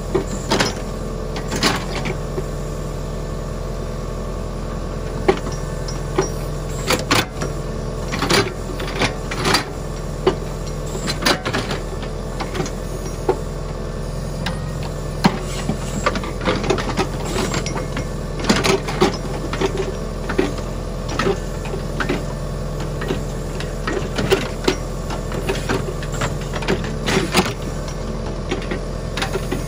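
John Deere 6300 tractor's diesel engine running steadily while its rear-mounted backhoe works, with irregular clanks and knocks from the boom and bucket as it digs and swings dirt and brush.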